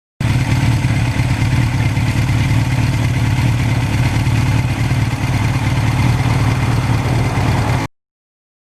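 Suzuki GS1100E's air-cooled inline-four engine running steadily with a deep, even hum, starting and cutting off suddenly.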